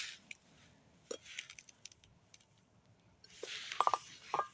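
Water being poured into a small baking-soda volcano, a soft splashing hiss about three and a half seconds in, with a few light taps of cup and container.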